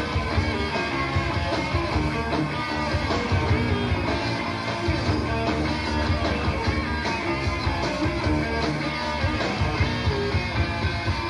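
Recorded rock song with guitar, playing steadily at full band level.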